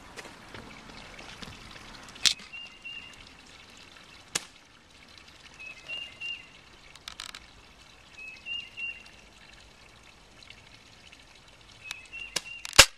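Airsoft guns firing: sharp single snaps a few seconds apart, with the loudest two in quick succession near the end.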